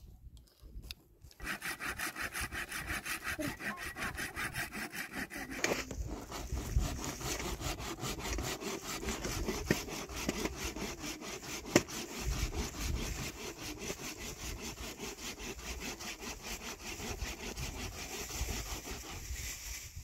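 Hand saw cutting dry wood in fast, even strokes, going on steadily; the sound of the cut changes about six seconds in.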